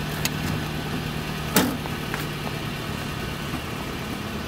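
Toyota Corolla iM hatchback's four-cylinder engine idling steadily with the driver's door open, with one sharp click about a second and a half in.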